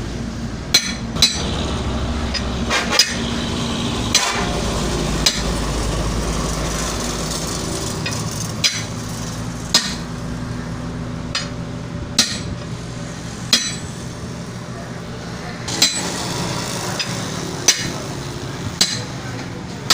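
Hammer blows on a tractor-trolley tyre during puncture repair: about fifteen sharp, irregular strikes, one every second or two. A steady low hum runs underneath.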